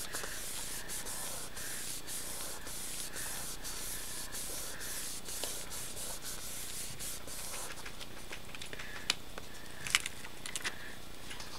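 Hands rubbing back and forth over a sheet of cardstock, pressing it onto a paste-covered stencil to transfer the print: a run of quick, papery rubbing strokes that stops about two-thirds of the way through, followed by a few light clicks.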